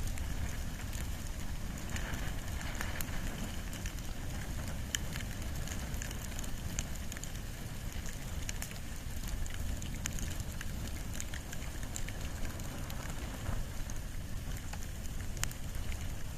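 Wood and bamboo fire burning, with scattered sharp crackles and pops over a steady low rumble.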